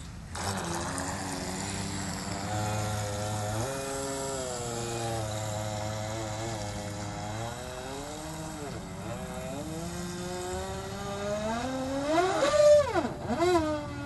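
Remote-control boat's motor running and revving, its pitch rising and falling with the throttle, then climbing and swooping sharply about twelve seconds in.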